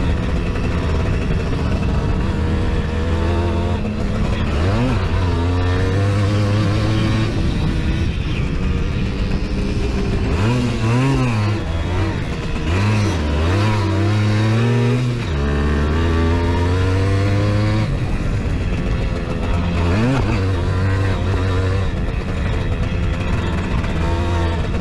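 Simson moped's two-stroke single-cylinder engine running hard, heard from on board. The revs drop and climb again about five seconds in, several times between ten and fifteen seconds, and again around twenty seconds, as the throttle is eased and reopened.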